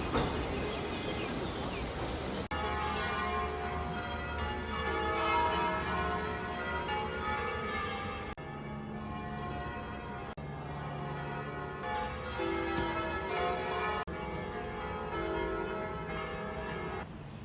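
Church bells ringing, several bells overlapping with long ringing tones, starting a couple of seconds in after a short stretch of broad noise. The ringing breaks off abruptly a few times.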